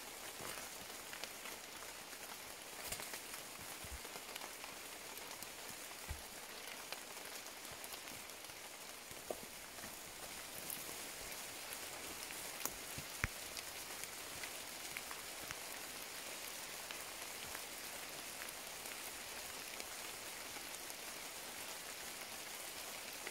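Steady rain falling on dense rainforest foliage, an even hiss with scattered louder drop ticks.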